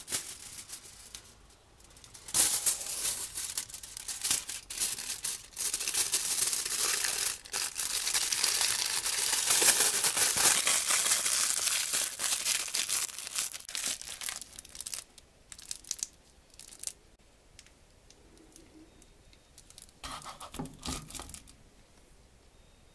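Rustling and crinkling handling noise from latex-gloved hands working close to the microphone, coming in uneven bursts for about twelve seconds. It then drops away, with a few soft knocks near the end.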